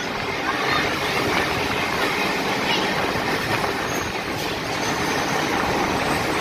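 Chennai MRTS electric local train running at speed along its elevated track, heard from the coach doorway: a steady rush of wheel-on-rail and wind noise.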